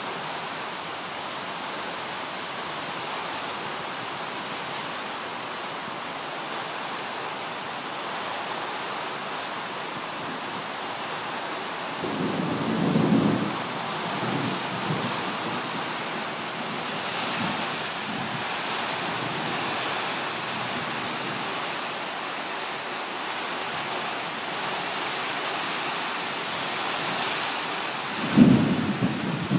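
Heavy rain falling steadily in a thunderstorm, growing heavier about halfway through, with two low rumbles of thunder, about twelve seconds in and again near the end.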